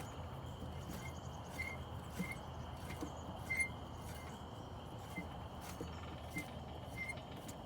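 Light, irregular metal clicks from a hand wrench loosening the mower's lug nuts, over a steady low hum with short high chirps now and then.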